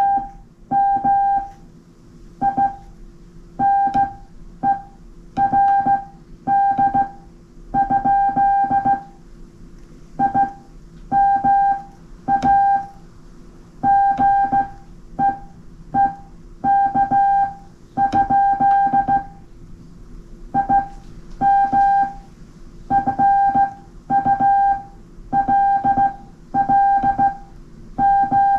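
Ham radio Morse code (CW) sent by hand on a straight key: a steady, clear mid-pitched beep keyed on and off in dots and dashes with slightly uneven hand timing. Each key-down starts with a faint click, and a low hum runs underneath.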